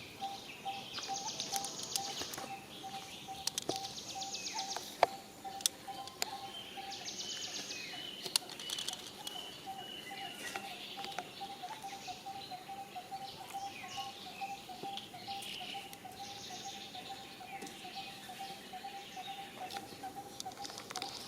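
Outdoor woodland ambience: a steady series of short, low-pitched calls, about three a second, with bursts of high buzzing trills every few seconds and a few sharp clicks about five seconds in.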